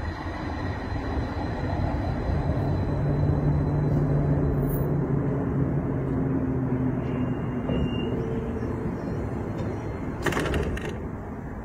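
Light-rail tram running on its track, with a steady low hum for several seconds that then fades. A brief sharp rattle comes about ten seconds in.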